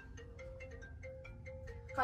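Quiet background music of short, light notes stepping between a few pitches.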